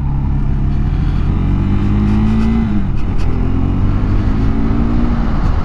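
KTM 390 Adventure's single-cylinder engine heard from onboard, pulling under acceleration: its pitch climbs, drops at a gear change about halfway through, then climbs and drops again near the end, over steady wind rush.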